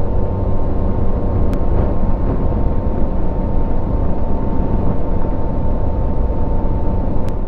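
Motorcycle at road speed: steady rush of wind and road noise with the engine's drone underneath and a faint steady whine over it, the wind buffeting the microphone.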